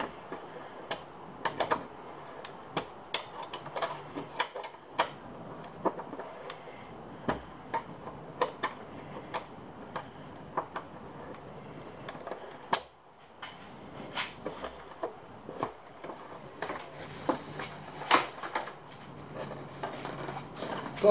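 Irregular small clicks and clinks of hand tools and metal bolts as motorcycle fairing fasteners are undone and the plastic fairing is worked loose.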